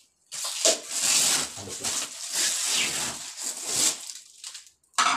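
Blue plastic protective wrap being pulled and peeled off a new ceramic toilet bowl. It crinkles and rustles in uneven pulses for about four seconds, then gives one short, loud burst near the end.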